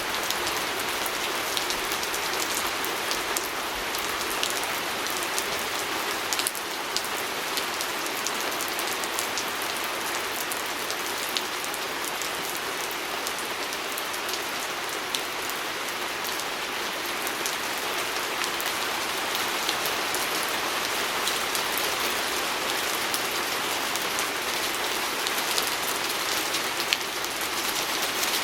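Steady rain pattering on a window pane, a constant hiss scattered with many small drop ticks.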